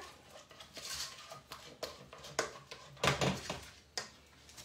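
A spoon stirring and scraping through a thick ground-beef and cream-cheese mixture in a pot. There are scattered clicks of the spoon against the pot and one louder knock about three seconds in.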